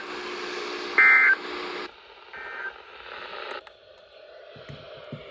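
Emergency Alert System end-of-message data bursts coming over a radio, closing the tornado warning: a short, loud burst of two-pitch data tones about a second in, then a fainter one at about two and a half seconds. Under them runs a steady hum and hiss that cuts off at about two seconds, leaving faint static and a couple of low thumps near the end.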